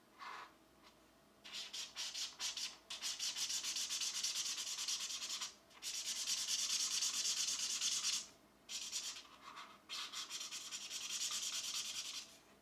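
Pencil scratching back and forth on a coloring-book page in rapid shading strokes, three long spells with short pauses between them.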